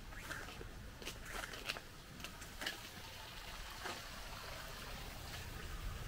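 Faint outdoor ambience: a steady low rumble with a scattering of short, light ticks at irregular intervals.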